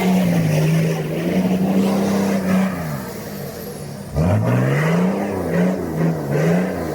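A 4WD vehicle's engine running steadily, then, about four seconds in, revving up and falling back over and over as it drives along a rough 4WD track.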